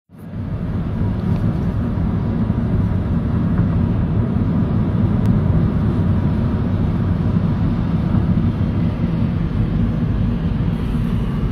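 Steady low rumble of a car driving, heard from inside the cabin: engine and road noise on a wet road.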